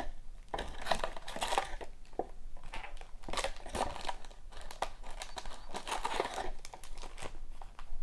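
Foil hockey card pack wrappers crinkling and rustling in irregular bursts as a stack of packs is handled and pulled from the cardboard box.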